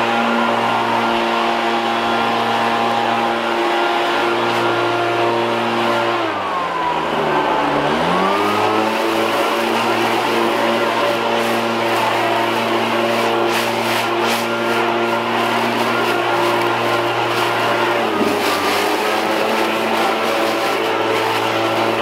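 Stihl BR700 two-stroke backpack leaf blower running at full throttle with a rush of air from the tube. About six seconds in the throttle is eased off and the engine note drops steeply, then climbs back up within about two seconds; later there is a brief, smaller dip.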